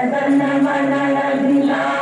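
Recorded choir singing long, held, chant-like notes, played back as the programmed audio ring of an automatic school bell scheduler.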